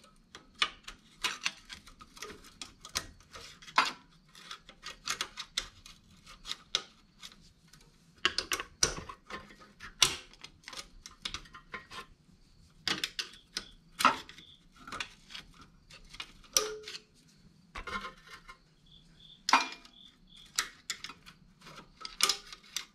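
Steel screwdriver shafts clicking, clinking and scraping against a small engine's valve spring and valve chamber as two screwdrivers are used to pry the spring up and seat the valve, in place of a valve spring compressor. The clinks come at irregular moments, a few louder ones ringing briefly.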